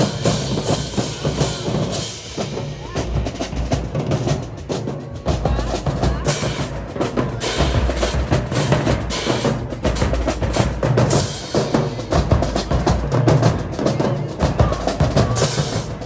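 High school marching band drumline playing, with snare and bass drums beating a steady, driving rhythm.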